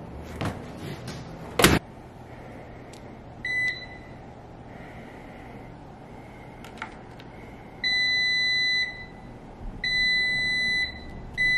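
A single loud thump about two seconds in as the dryer door is shut, then electronic beeps from a coin-laundry dryer's card-payment panel. There is one short beep, then two long beeps of about a second each, and a short beep near the end, over a faint steady hum.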